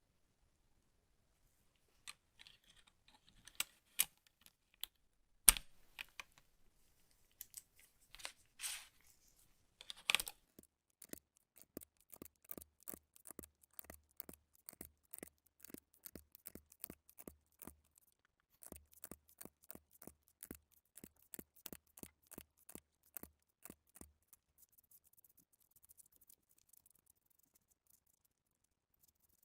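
Scattered clicks and handling noises, then a long steady run of key presses, about three a second, on a HyperX Alloy Origins Core TKL mechanical keyboard with HyperX Aqua tactile switches.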